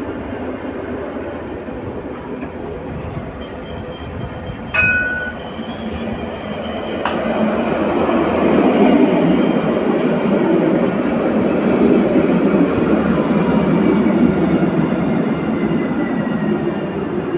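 Train running on its tracks, a steady rolling noise that grows louder from about six seconds in, with a short high tone about five seconds in.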